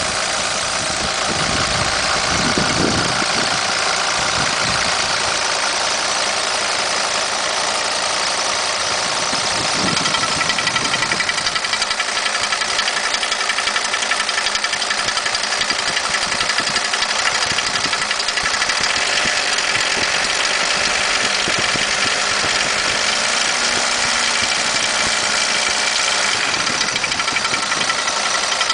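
Mercedes-Benz Sprinter 212D five-cylinder diesel engine idling steadily, with an unexplained extraneous noise that the owner suspects comes from the fuel injectors, which also goes with high fuel consumption.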